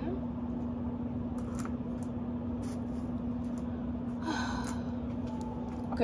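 A steady low hum, with a few faint clicks and a short rustle about four seconds in as stones and crystals are handled and sorted.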